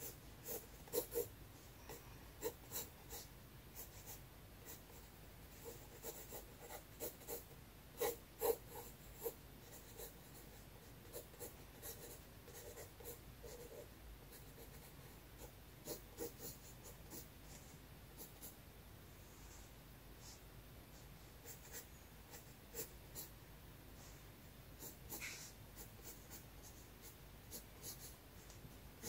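Graphite pencil scratching across sketchbook paper in short, irregular strokes as a drawing is sketched.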